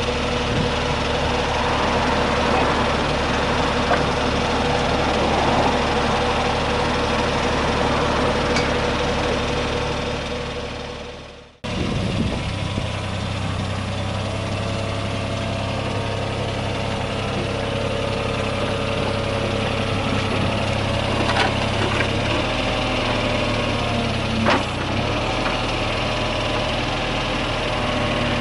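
Yanmar VIO20-1 mini excavator's diesel engine running steadily, with a few short knocks later on. The sound fades out about eleven seconds in and comes back abruptly.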